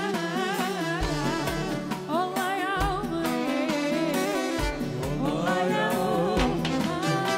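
A woman singing an Arabic song with a wavering, ornamented melody, accompanied by a band with regular drum beats.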